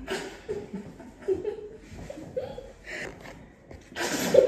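Women chuckling and giggling quietly, with a louder burst of laughter near the end.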